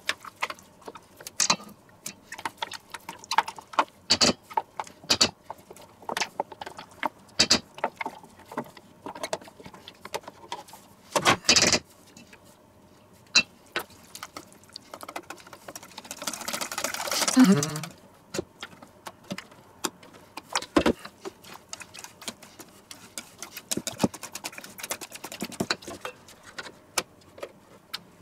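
Wire whisk clicking and scraping against a stainless steel mixing bowl while stirring a creamy filling, in irregular taps, with a louder knock about two-fifths of the way in and a longer scrape a little past the middle.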